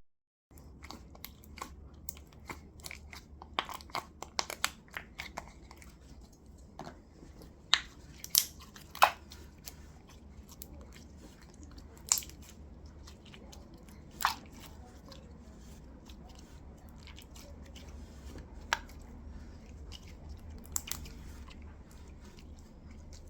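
Slime being squeezed and worked by hand: scattered sticky clicks and small crackling pops, with a few louder snaps.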